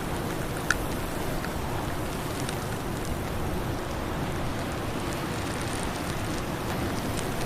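Steady rushing noise of blizzard wind and driven snow, heaviest in the low end, with a few faint ticks and one sharper click less than a second in.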